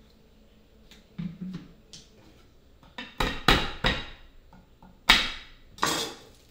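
Irregular sharp knocks and clatters of kitchen utensils and containers, about half a dozen, bunched around the middle, the loudest about five seconds in.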